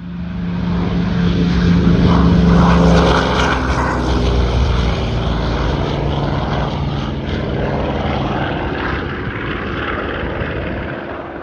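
Propeller airplane passing overhead with its engine at full power: the drone swells to its loudest about two to three seconds in, the engine note drops a little as it goes by, and it then slowly fades.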